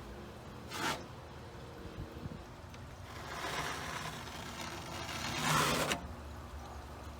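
Lexan knockdown knife drawn across wet joint-compound knockdown texture on drywall, flattening its peaks. A short swipe about a second in, then a longer scraping stroke that begins about three seconds in, grows louder and stops sharply near six seconds.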